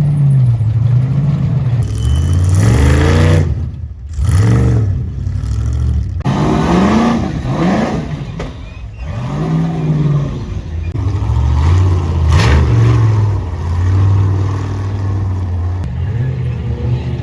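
Ultra4 rock racing buggy's engine revving in repeated short bursts, its pitch climbing and falling again and again as the driver works the throttle through a rock section.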